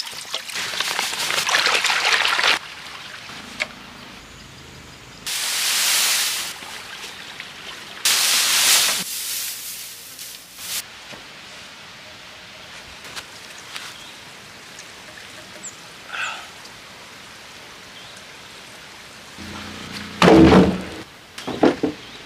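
Water pouring into an aluminium basin, followed later by two more bursts of rushing noise. Near the end come a few heavy wooden knocks as timber planks are handled and set down.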